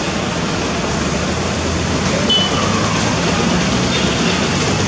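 Steady rumble of a turboprop airliner's engines running across the airfield, with a couple of brief high chirps over it.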